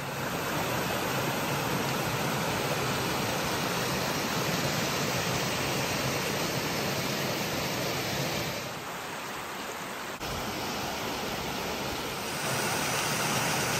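Mountain stream rushing over rocks and small cascades: a steady wash of water that dips a little about nine seconds in and grows louder again near the end.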